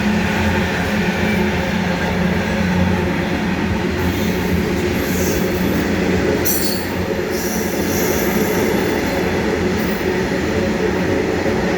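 Train behind diesel-electric locomotives rolling past in a steady, loud rumble of wheels on rail, with a few short high-pitched wheel squeals about halfway through.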